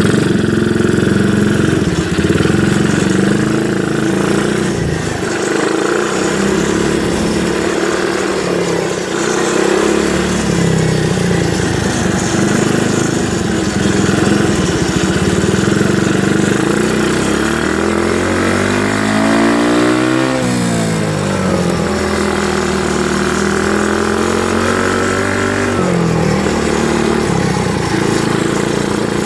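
110cc four-stroke engine of an X7 pocket superbike running, its pitch shifting with the throttle; about two-thirds of the way through, the revs drop and then climb again.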